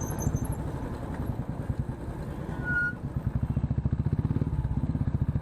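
Motorcycle engine running at low revs, its evenly spaced firing pulses clearly heard, picking up slightly a few seconds in. A brief high beep sounds near the middle.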